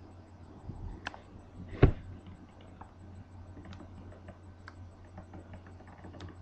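A cat kneading a cloth at close range: scattered faint clicks and rustles as its paws work and its claws catch the fabric. One sharp thump about two seconds in.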